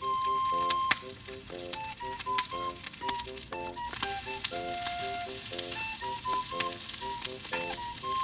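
Food frying in a pan, a steady sizzle with small crackles and pops throughout.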